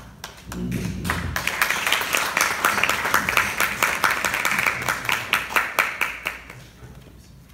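Group applause, many hands clapping, with sharper claps from people close by. It builds about half a second in, holds for several seconds, and dies away near the end.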